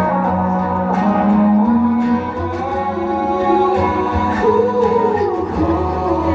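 Live concert music: a singer's voice over a band or backing track with guitar, played loud.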